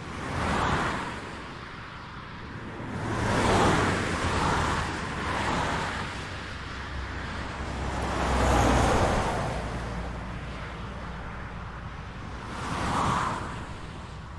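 Highway traffic: vehicles passing one after another, each tyre-and-engine whoosh swelling up and fading away, about six passes in all. The pass near the middle is longer and carries more low rumble.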